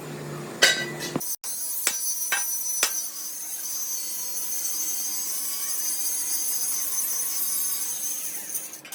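Workshop metalwork on a steel truck rim: a few sharp knocks in the first three seconds, then a steady high hiss that fades out near the end.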